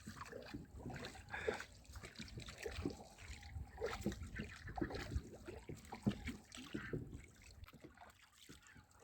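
Faint sounds of a boat crossing a lake: a low rumble with scattered small knocks and splashes.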